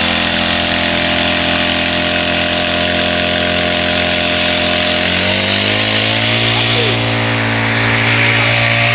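Mollar four-stroke brush cutter engine running steadily, then about five seconds in revving up to a higher speed and holding there.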